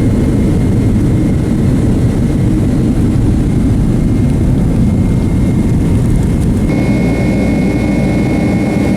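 Jet airliner engine and cabin noise heard from inside the cabin: a loud, steady low rumble with a faint high whine, and a few more thin steady tones joining about seven seconds in.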